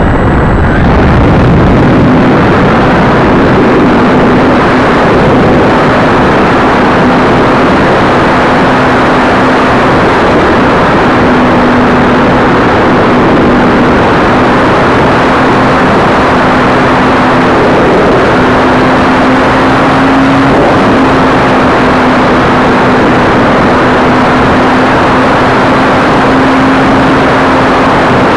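Electric motor and propeller of a ParkZone F4U Corsair RC plane in flight, heard from a camera on the plane itself: loud rushing noise with a steady propeller hum that wavers slightly in pitch.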